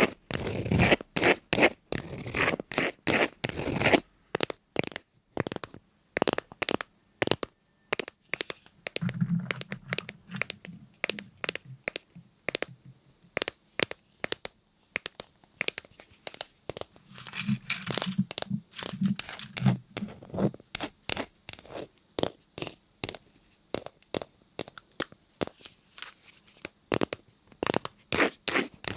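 Irregular run of crisp crackles, clicks and tearing scrapes, some coming in quick clusters, like something being crushed, torn or crumpled close to the microphone. Twice a low buzz sits under the crackling for a couple of seconds.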